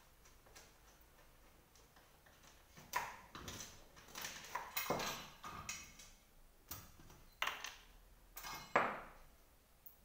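Irregular knocks and clicks as an office chair's five-star base and gas-lift column are handled and worked on, a few of them with a short metallic ring.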